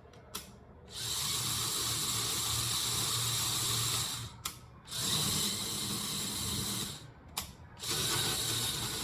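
Small electric motor driving a LEGO Technic plastic gearbox, a steady whir of meshing gears. It cuts out briefly twice, about four and seven seconds in, and starts again each time.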